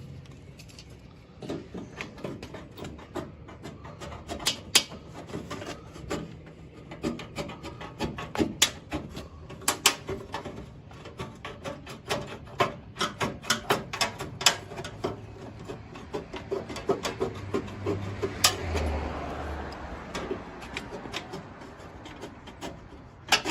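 Hand cutters cutting a downspout hole in a metal gutter: a long run of irregular sharp snips, clicks and scrapes of metal.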